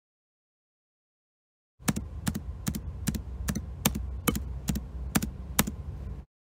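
Footstep sound effect starting about two seconds in: a steady walking pace of sharp, even clicks, about two and a half steps a second, over a low rumble, cutting off suddenly.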